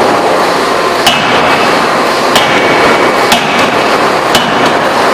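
Electro-hydraulic open die forging hammer striking four times, roughly once a second, each blow a sharp impact with a short metallic ring, over a steady loud background noise.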